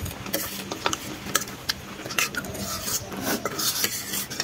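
Forks and spoons clinking and scraping against steel plates as spicy noodles are eaten, with slurping and chewing.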